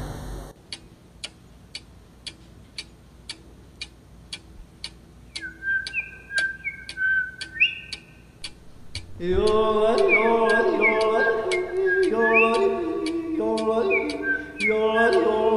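Steady ticking, about three clicks a second, like a clock counting off a long silence; a few seconds in, a short whistled phrase of rising notes; about nine seconds in, a group of voices singing in harmony comes in over the ticking.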